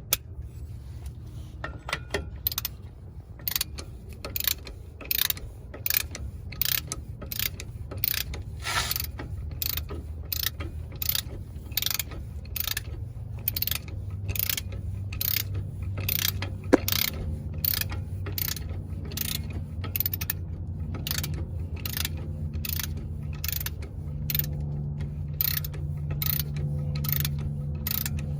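Hand ratchet turning a 32 mm socket, its pawl clicking in a long series of back-strokes, a bit more than one a second, as the new front axle nut is run down.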